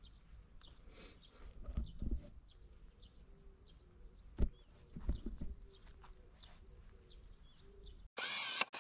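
Faint, short falling bird chirps repeating irregularly, about once or twice a second, with a few low thumps mixed in. Near the end a loud burst of noise cuts in suddenly.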